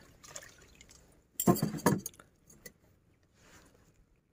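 Close handling noise: a short cluster of clicks, knocks and rustling about a second and a half in, otherwise quiet.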